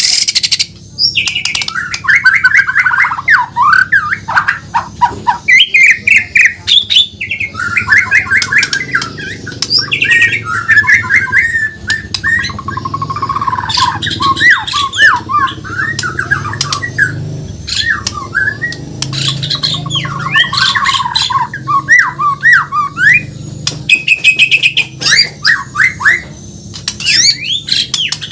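White-rumped shama (Bornean murai batu) singing a long, nearly unbroken run of rapid, varied phrases: quick trills and pitch-sliding notes mixed with sharp clicks.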